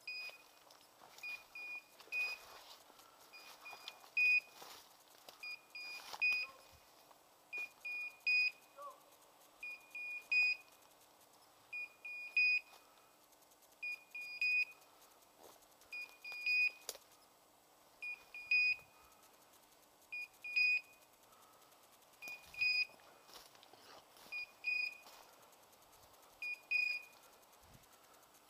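Electronic beeper collar on a pointing dog sounding its point signal: a high beep in short clusters repeating about every two seconds, the sign that the dog is standing still on point. Faint rustling of brush underfoot.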